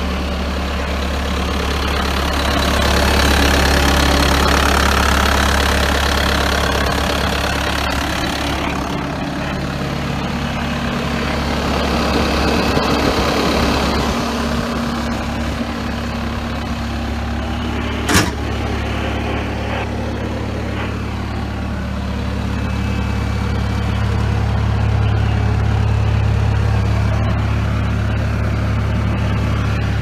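Bobcat T190 compact track loader's diesel engine idling steadily, swelling slightly in loudness near the start and again near the end. A single sharp click cuts through about 18 seconds in.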